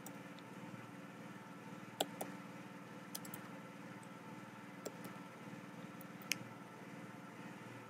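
Typing on a computer keyboard: about six sharp key clicks, spaced irregularly, over a steady low hum.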